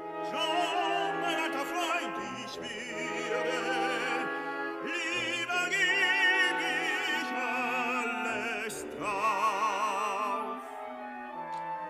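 Opera music: an orchestra with singing, the held notes wavering with wide vibrato.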